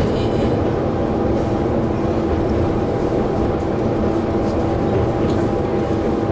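Diesel railcar running at steady speed, heard from inside the cabin: a constant engine drone with a steady hum over a low rumble.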